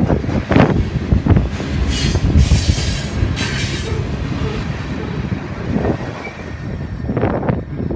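BNSF freight cars rolling past at speed, wheels clacking over rail joints in quick groups at the start and again near the end over a steady rumble. A high wheel squeal rises from the cars about two to three seconds in.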